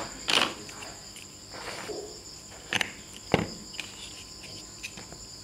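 Large plastic toy building blocks knocking and clacking as they are picked up and handled: a few sharp knocks, the loudest near the start and a little past halfway. A steady, high-pitched, cricket-like background tone goes on underneath.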